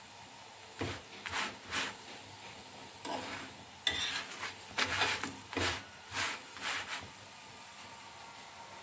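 A paratha being pressed and turned on a hot nonstick tawa with a spatula: about a dozen short scraping, sizzling strokes between about one and seven seconds in, over a faint steady hiss.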